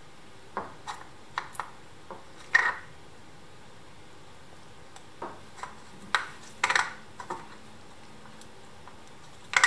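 Scattered light taps and clicks of hard objects being handled on a wooden workbench: a wooden screwdriver handle, a wooden stick and a small glass dish. They come irregularly in two clusters, with a sharper knock near the end.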